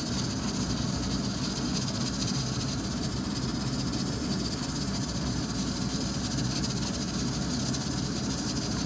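Gas stove burner running under a pot of soup: a steady rushing hiss with a low rumble underneath.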